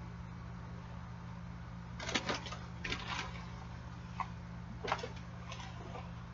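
Handling noises of a kitten being held and moved: short clusters of clicks and rustles about two, three and five seconds in, over a steady low hum.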